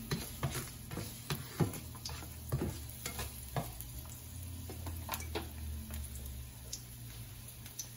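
Chopped garlic and whole dried red chillies sizzling gently in a little hot oil in a nonstick frying pan, the tempering step of a dish. A spatula stirs and taps against the pan in quick clicks for the first half, then only a few knocks follow.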